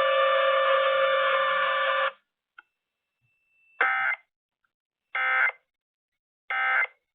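EAS broadcast alert audio: a steady attention tone cuts off about two seconds in. After a pause come three short, identical warbling data bursts about a second and a half apart. These are the EAS end-of-message (EOM) code that closes the alert.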